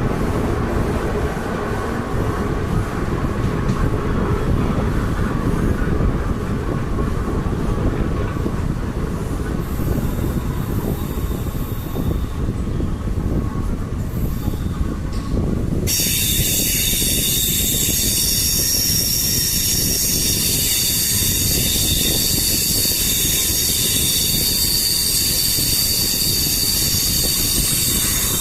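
MEMU electric train running with a low rumble, then about halfway through its wheels break into a steady, piercing high-pitched squeal with several ringing tones as it takes a sharp curve.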